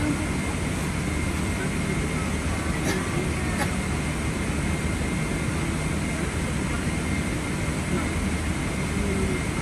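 Steady rumble and hiss inside a Boeing 777-300ER cabin during pushback, with a faint steady high whine; the GE90 engines have not yet been started. Two faint clicks about three seconds in.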